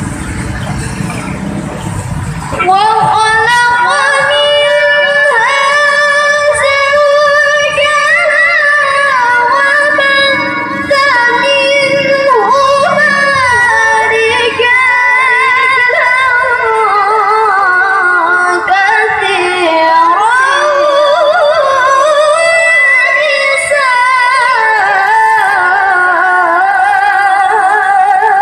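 A woman reciting the Quran in the melodic tilawah style into a handheld microphone, with long held notes and wavering ornaments. The recitation comes in about two and a half seconds in, after a low rumbling noise, and pauses briefly for breath near the middle.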